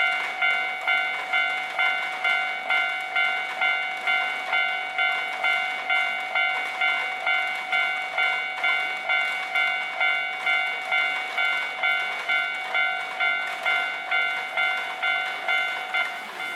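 Railway level-crossing warning bell ringing about twice a second, each ringing strike fading before the next. It stops shortly before the end.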